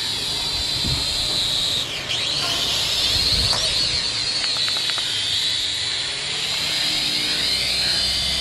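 Small toy quadcopter drone's motors and propellers whining in a high pitch while it hovers and manoeuvres low over the ground. The pitch dips about two seconds in and climbs again, rising and falling with throttle.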